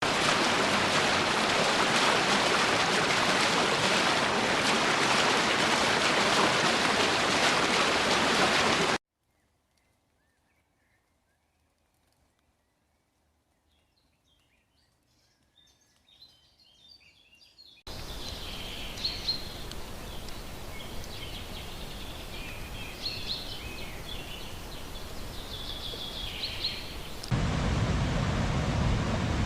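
Nature ambience clips joined by hard cuts. About nine seconds of loud, steady rushing noise stop suddenly, followed by near silence with faint bird chirps. Birds then chirp over a softer steady rush, and a louder, deeper rushing noise cuts in near the end.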